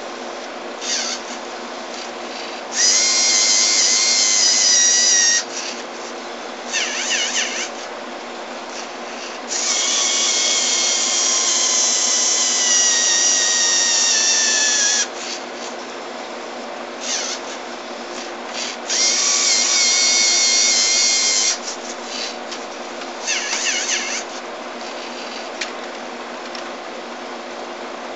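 Geared LEGO Mindstorms electric motors whining as they drive a robot CD changer's arm, in three loud runs of a few seconds each, the longest about five seconds, the whine sagging a little in pitch during each run. Shorter, quieter whirring bursts fall between the runs.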